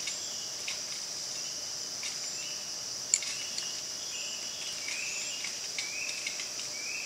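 Steady high-pitched drone of insects in the forest. A bird gives short rising chirps about once a second in the second half, and there is one sharp click about three seconds in.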